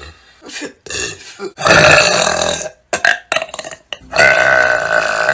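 A young woman burping loudly twice: a long belch about a second and a half in, lasting about a second, and another long one beginning near the end.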